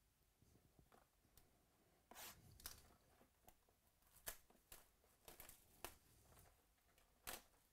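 Plastic shrink-wrap being torn and peeled off a sealed trading-card box: faint crinkling with a string of sharp crackles and short tears, the loudest about two, four and seven seconds in.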